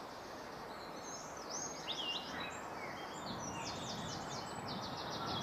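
Outdoor garden ambience: a steady background hiss with small songbirds chirping and trilling, the calls growing stronger from about two seconds in.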